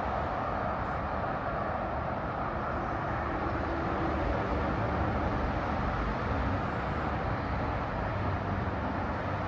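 Steady running noise of a moving vehicle: a continuous rumble with an even hiss over it, unchanging throughout.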